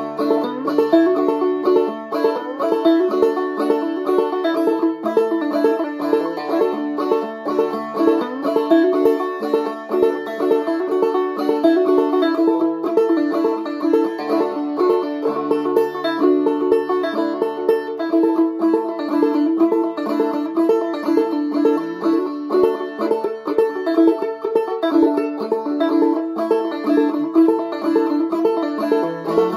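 Semi-fretless banjo played clawhammer style, tuned aDADE in the key of D: a steady, unbroken run of down-picked melody notes and drone-string strikes, with some notes slid into along the neck.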